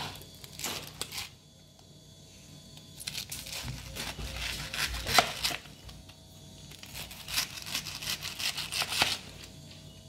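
Rustling, tearing and crackling handling noise in three bouts separated by short quiet gaps.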